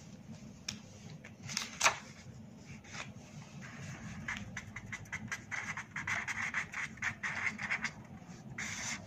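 Felt-tip colour marker scratching across paper in a quick run of short strokes as a word is handwritten, with a few sharp clicks in the first two seconds.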